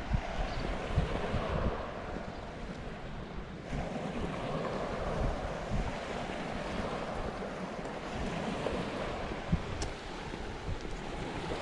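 Wind buffeting the microphone over the steady wash of the sea at high tide.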